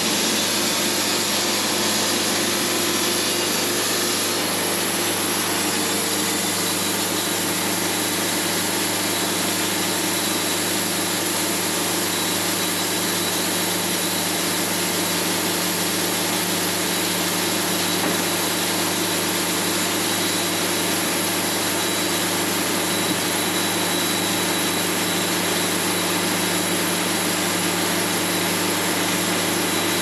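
Portable sawmill running steadily: an engine's even hum under a dense high hiss, with no breaks.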